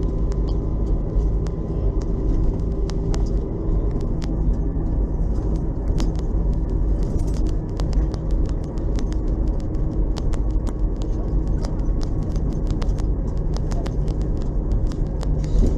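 LAZ-699R bus's ZIL V8 petrol engine running steadily at an even speed, with frequent short sharp clicks scattered over the drone.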